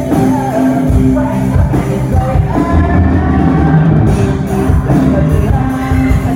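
A live band playing a rock song, with singing over the instruments.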